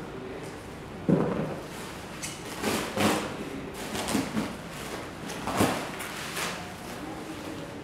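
Cardboard box being handled and drawn out of its plastic wrapping: a sharp knock about a second in, then several short rustles and scrapes of cardboard and plastic.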